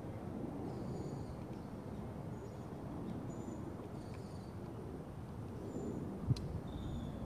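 Steady low outdoor background noise with small birds giving short high chirps every second or so, and one sharp click about six seconds in.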